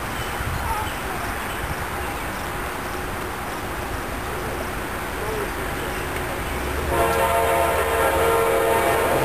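Low rumble of an approaching train, then about seven seconds in a Norfolk Southern locomotive's air horn sounds a held chord of several tones, louder than the rumble.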